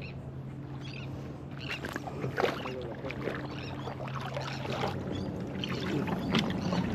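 Water splashing and sloshing in irregular strokes, with a steady low hum underneath that fades about four seconds in.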